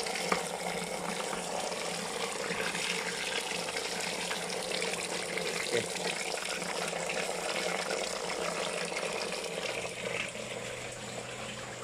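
Water pouring in a steady stream from a PVC return pipe and splashing onto sponge and bio-media in a pump-fed aquarium filter. It gets a little quieter in the last couple of seconds.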